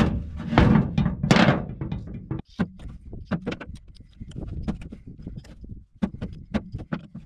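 A heavy metal valve housing set down on a steel truck bed with a few loud thunks, then irregular metal clinks and clicks as a wrench and pliers work the bolt on the separator's diaphragm assembly.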